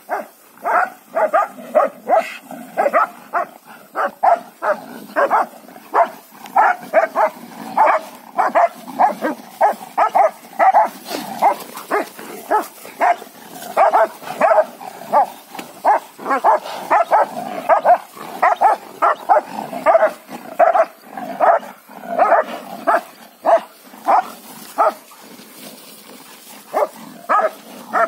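A dog barking in quick, repeated barks, about two to three a second, as it chases cows; the barking eases off briefly near the end, then starts up again.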